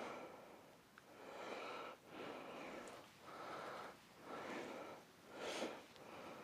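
A person breathing close to the microphone, in noisy swells about once a second.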